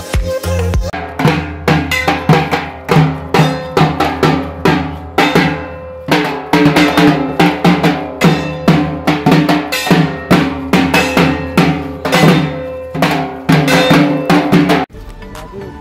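Dhak, the large Bengali barrel drum, beaten with thin sticks in a fast, steady rhythm, each stroke ringing. The drumming starts about a second in and cuts off sharply near the end.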